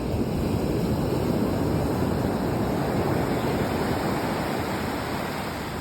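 Sea waves washing on the shore: a steady rushing surf that swells a little just after the start and eases slightly near the end.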